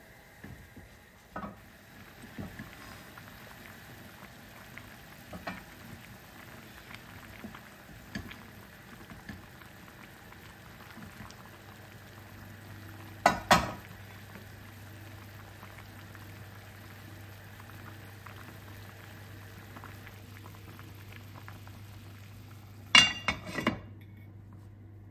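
Food cooking in a pot on the hob, a steady bubbling hiss with scattered small clicks. There are two short, louder bursts of clattering, one about halfway and one near the end.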